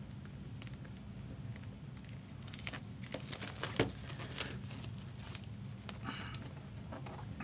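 Light crinkling and scattered clicks from a sealed trading-card box and its plastic wrap being handled, over a faint steady low hum.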